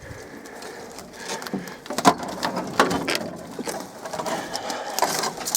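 Irregular knocks, scrapes and rustling from someone handling things, with sharper knocks about two and three seconds in.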